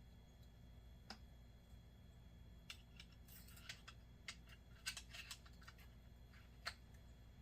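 Faint, scattered small clicks and light scratchy taps from handling the parts of a fishing reel and small tools during reassembly. There is one click about a second in, then a run of quick clicks through the middle.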